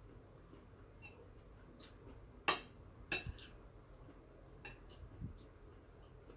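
Cutlery clinking against a plate while eating: two sharp clinks about two and a half and three seconds in, then a few fainter taps.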